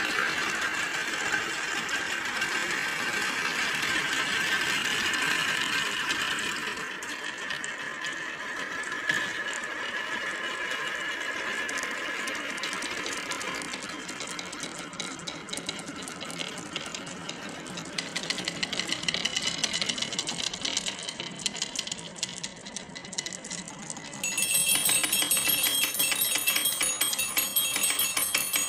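Marbles rolling and clattering along a marble run track, a dense run of clicks and rattles. About 24 seconds in the rattling turns louder and brighter, with a jingling quality.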